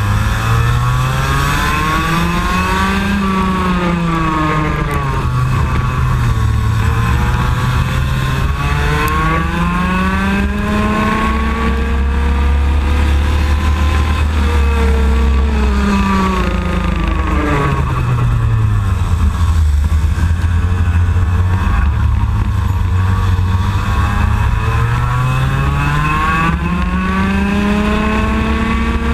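IAME X30 125cc two-stroke kart engine at racing speed, heard from on board, its pitch climbing in long sweeps and dropping back three times as the kart accelerates and slows around the lap.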